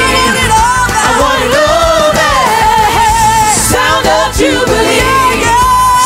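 Gospel praise team of several singers singing into microphones over a live band, with long held notes.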